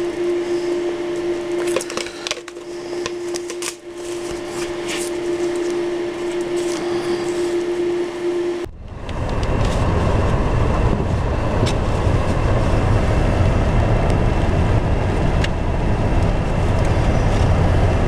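Protective film crackling as it is peeled off a cut acrylic panel, over a steady machine hum. About nine seconds in it cuts to a car's cabin: a loud, even low rumble with rain on the windshield.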